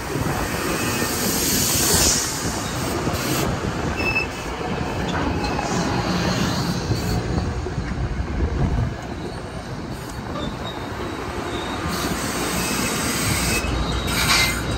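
NJ Transit Arrow III electric multiple-unit passenger cars rolling past at close range: a steady rush of steel wheels on rail, with brief high wheel squeals a few seconds in.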